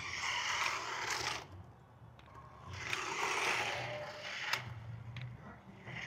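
Battery-powered RC monster truck driving over concrete: its small electric motor whirring and its tyres scraping, in two runs, the second starting about three seconds in.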